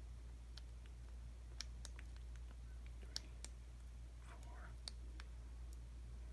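Faint, irregular metallic clicks of a lock pick and tension wrench working the spool and serrated pins of an American 5200 padlock during single-pin picking, over a low steady hum.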